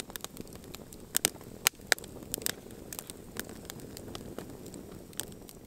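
Wood campfire crackling: irregular sharp pops and snaps over a soft steady rush of burning logs, with a few louder pops in the first two seconds.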